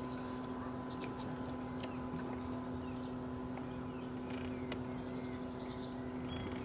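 Steady motor hum on a fishing boat, one even drone that does not change, with a few faint short ticks over it.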